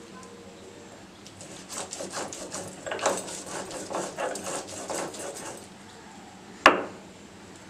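Stone roller being rubbed back and forth on a stone grinding slab (sil-batta) to grind poppy seeds into paste: a run of gritty scraping strokes, about two to three a second, starting a couple of seconds in and stopping near the end. This is followed by one sharp knock of stone on stone.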